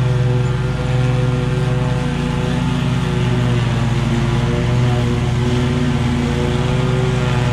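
Engine of a stand-on zero-turn mower running steadily under load while mowing tall grass.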